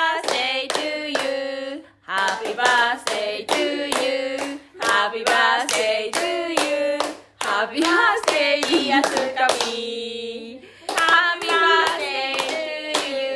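A small group singing together in a small room, phrase by phrase, while clapping in a steady beat, several claps a second.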